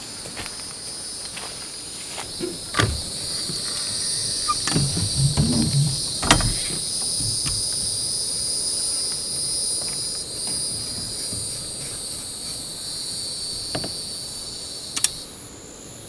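A steady, high-pitched insect drone that sets in a couple of seconds in and stops abruptly near the end. Over it come a few sharp knocks from climbing an RV's metal rear ladder.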